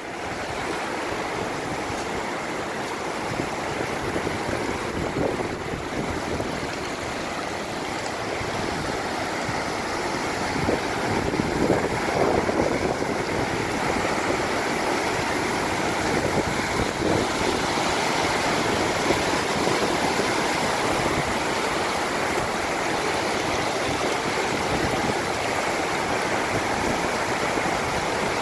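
Mountain stream rushing and splashing over rocks in small white-water cascades, a steady sound of water that grows a little louder after about ten seconds.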